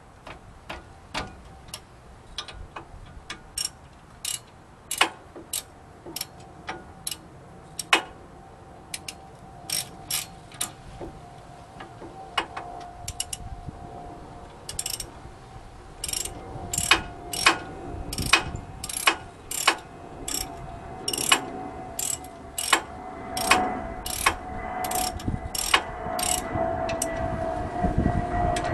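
Hand ratchet wrench clicking in short strokes as a bolt behind the brake rotor is turned, single sharp clicks about every half second to a second, coming faster in the second half. A steady engine drone builds in the background from about halfway through.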